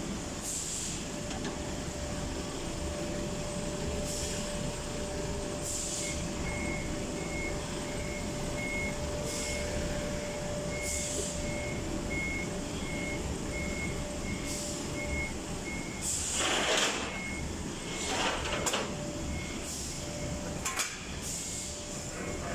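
Toyota forklift running with a steady low rumble and hum while its reversing alarm beeps about one and a half times a second, starting about six seconds in. Two loud bursts of hiss come near the end.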